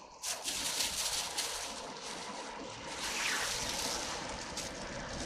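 Plastic bag rustling and water splashing as a hooked crucian carp is landed and handled, with bursts of crinkling in the first second and a half.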